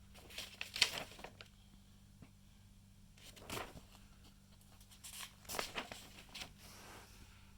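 Paper pages of a printed manual rustling as they are turned and handled, in three bursts: near the start, about three and a half seconds in, and again from about five to seven seconds in.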